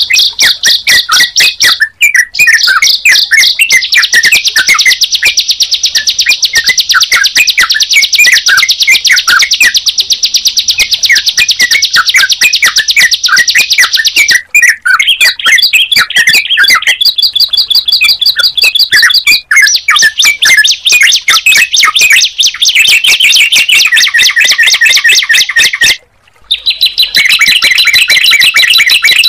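Bar-winged prinia (ciblek) giving a rapid, unbroken run of high chirping notes, with the lower bubbling notes of a yellow-vented bulbul (trucukan) mixed beneath. The song stops for a moment three times, near two seconds in, midway and near the end.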